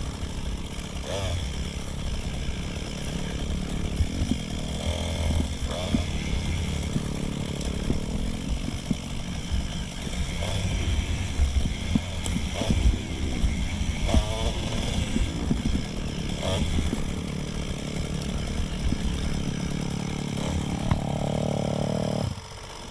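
Dirt bike engine running on single-track trail, its revs rising and falling with the throttle, played back at double speed. The engine sound drops away abruptly shortly before the end.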